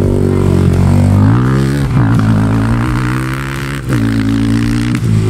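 An engine running, revving up about a second and a half in and dropping back near four seconds.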